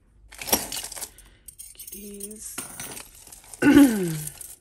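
Costume jewellery clinking and jangling as metal bangles, chains and beads are rummaged through and lifted from a pile, with a sharp clatter about half a second in.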